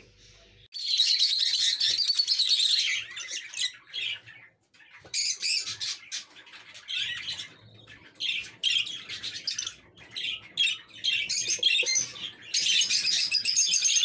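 Budgerigars chattering in a cage: a dense, high warbling chatter that thins to scattered chirps in the middle and thickens again near the end.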